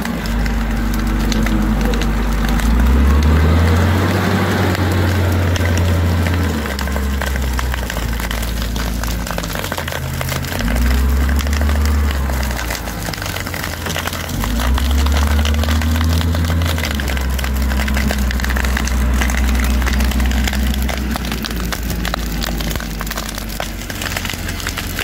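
Case W20F wheel loader's diesel engine running under load, revving up and down several times as it works. Dense crackling and crunching of dry brush and soil runs over it.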